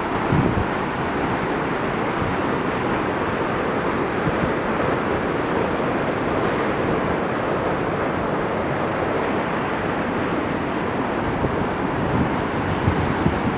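Waterfall's rushing water making a steady, even roar, with a few low gusts of wind on the microphone in the first second and again near the end.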